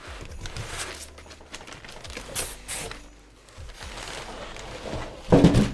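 Polystyrene foam packing being worked loose inside a cardboard box, foam rubbing and scraping against foam and cardboard, with one louder thump near the end.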